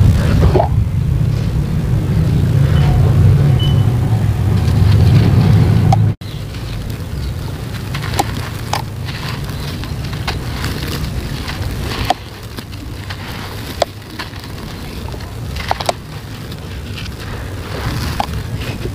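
Hands crumbling dry, gritty sand-cement over a low rumble. The rumble breaks off suddenly about six seconds in. After that come rough grinding with scattered sharp cracks and crackles as a cast block is crushed and loose grit runs through the fingers.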